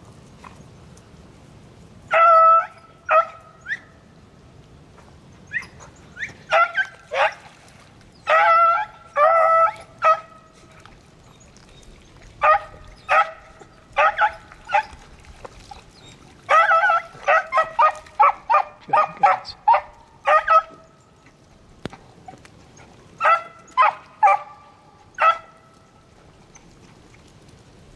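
Beagles baying in repeated bouts of short, ringing bays, starting about two seconds in: rabbit hounds giving mouth as they work the rabbit's scent line where it crossed the water.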